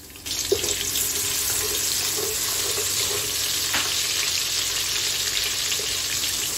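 Sliced onions frying in hot red palm oil in a pot, a loud steady sizzle that starts suddenly just as the onions go in. A wooden spatula stirs them through the bubbling oil.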